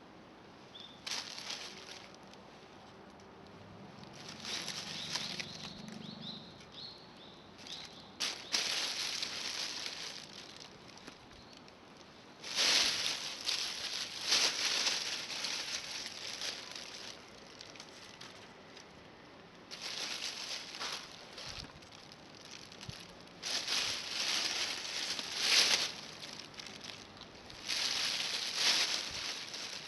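Intermittent rustling and scraping in about half a dozen bursts of one to three seconds each, the loudest starting about twelve seconds in.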